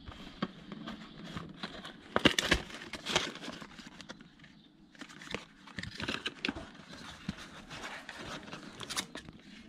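Irregular clicks, taps and knocks, with rustling in between, from hands and tools at work; a cluster of sharper knocks comes about two to three seconds in.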